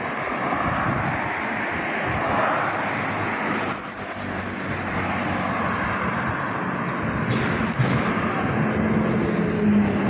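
Road traffic: cars passing close by on a multi-lane road, a steady wash of tyre and engine noise. Near the end a lorry's engine adds a steady low hum.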